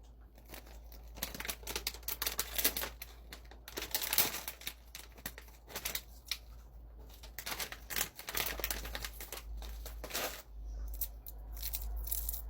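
Crinkly plastic snack bag being torn open and rustled by hand, a run of sharp crackles loudest about four seconds in.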